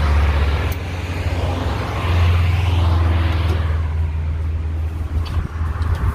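Mig 125 MIG welder arc crackling and hissing over a steady low hum from the machine. The crackle dies away about four seconds in, leaving the hum and a few sharp clicks. The welders blame the wire feed, which they say is stopping and starting and burning the wire off.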